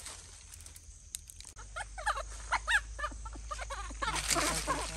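A baby monkey squeaking: a run of short, high, rising-and-falling squeaks starting about two seconds in, followed near the end by a rustling, scrabbling noise.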